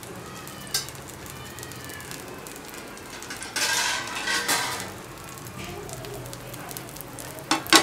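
Paniyaram batter frying in oil in a paniyaram pan over a gas burner, a low steady sizzle that grows louder for about a second midway through. Near the end come two sharp clicks, the loudest sounds.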